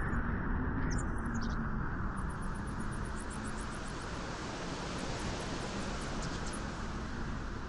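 Wind blowing on a beach: a steady, even rushing noise, with faint high ticking now and then.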